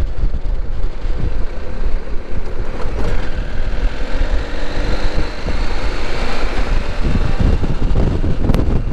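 CFMoto 800 motorcycle running on the move, its engine under a steady rumble of wind buffeting the microphone.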